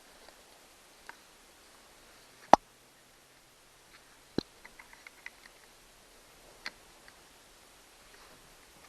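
Scattered sharp clicks and knocks of chainsaw parts and tools being handled during a teardown: one loud knock, a second knock followed by a quick run of small ticks, and one more click later.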